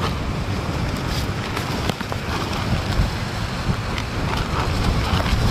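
Strong wind buffeting the microphone in a steady low rumble, with a few small knocks in the middle.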